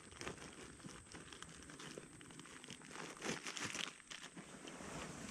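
Close, irregular crinkling and rustling of clothing and gear being handled, with a denser burst of it about three seconds in.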